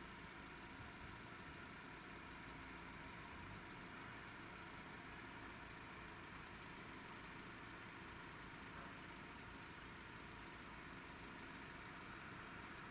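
Faint, steady, distant engine noise, like heavy machinery running, with no distinct knocks or changes.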